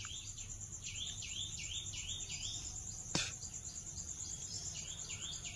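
Repeated high chirping, about four chirps a second in two runs, over a steady high-pitched background trill, with one sharp click about three seconds in.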